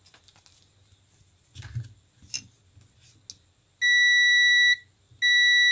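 Multimeter continuity buzzer beeping with one steady high tone, twice: about a second long a little before four seconds in, then again after a short gap, as the probes touch the phone board's battery connector. The beep means the battery connector is still shorted. A few light clicks from the probes come before it.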